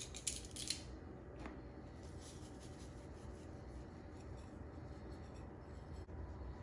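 Spice shaker shaken over raw cod fillets on a plate: a few quick, scratchy shakes in the first second and one fainter one about a second and a half in, over a low steady hum.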